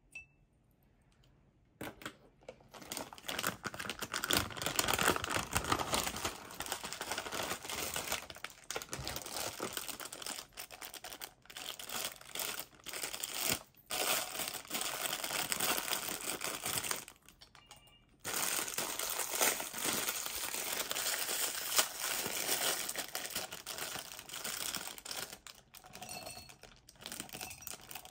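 Plastic bag of pink plastic lash glue rings crinkling and rustling as it is handled and opened, after about two seconds of quiet. Near the end the rings pour out and clatter into a small glass jar.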